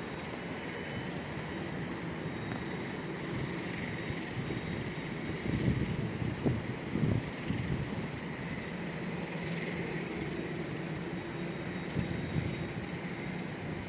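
Distant jet airliner engines, a Southwest Boeing 737 spooling up on its takeoff roll, heard as a steady rushing whine that swells and fades. A few low thumps come near the middle.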